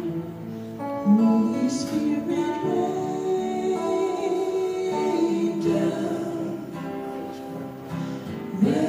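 A woman singing a slow worship song into a microphone, with long held notes, accompanied by guitar.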